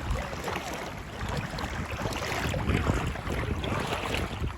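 Wind buffeting the microphone over the wash of sea water and surf, a steady rushing noise with a low rumble.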